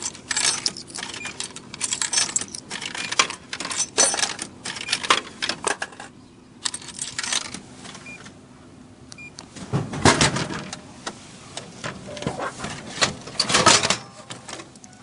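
Coins clinking one after another as they are fed into a drink vending machine's coin slot. About ten seconds in there is a heavy thud as a plastic bottle drops into the pick-up bay, then clattering as the flap is pushed and the bottle is taken out.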